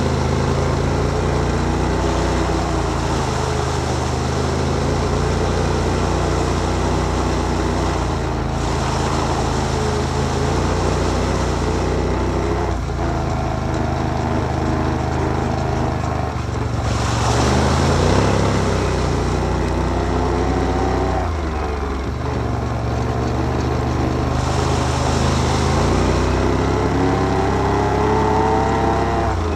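Can-Am Outlander 1000 ATV's V-twin engine running while riding, its pitch rising several times as the throttle opens and the quad picks up speed.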